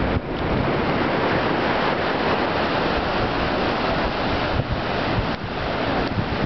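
Steady ocean surf washing in a small swell, with wind buffeting the microphone.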